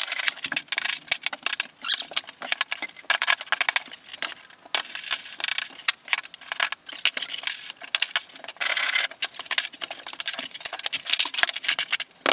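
Irregular gritty scraping and rubbing of deck mud, a sand and Portland cement mix, as it is packed and smoothed on a shower pan floor, in short strokes with brief pauses.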